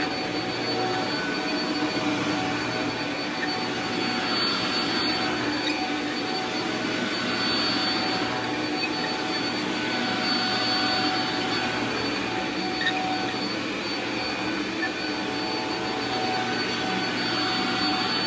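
Shark Multiflex vacuum cleaner running steadily while cleaning carpet, a rushing airflow with a steady high whine from the motor.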